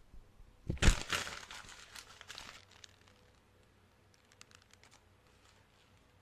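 A sheet of paper being crumpled by hand: a sharp rustle about a second in, then crinkling that fades out, followed by a few faint ticks.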